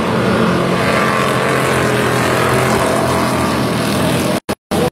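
Several dirt-track stock cars racing at speed, their engines blending into one loud, steady drone of overlapping pitches as the pack passes. The sound cuts out briefly twice near the end.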